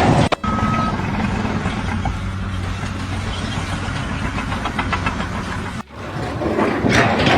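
A vehicle or machine engine running steadily, broken off abruptly twice.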